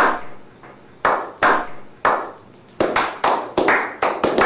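A slow clap: single hand claps with a roomy echo, about a second apart at first, then speeding up to several a second as more people join in.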